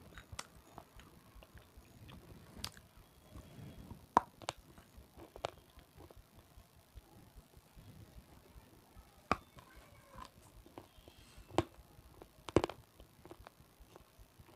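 Crisp crunching snaps as hard, chalky pieces of red sileti are bitten into close to the microphone, coming singly or in pairs a second or several apart.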